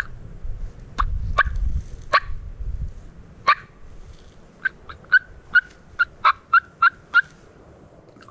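Turkey yelping: a few separate sharp yelps in the first few seconds, then a quick run of about nine yelps, two or three a second. Wind rumbles on the microphone during the first three seconds.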